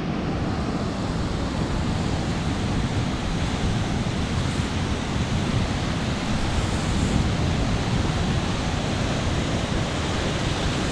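Ocean surf washing steadily against the shore, with wind noise on the microphone.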